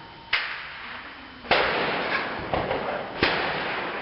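Rifle shots on a firing range: three sharp cracks, each trailing off in a long echo, near the start, about a third of the way in and near the end, with a fainter shot between the last two.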